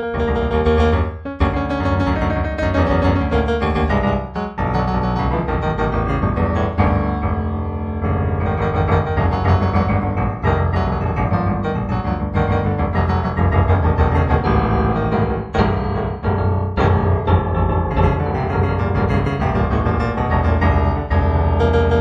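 Background solo piano music playing continuously.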